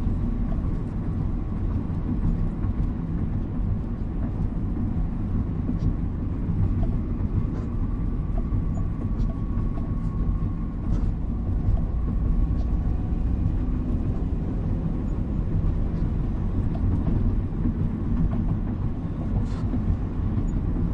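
Steady low rumble of a car driving on a wet street, heard from inside the cabin, with a few faint ticks.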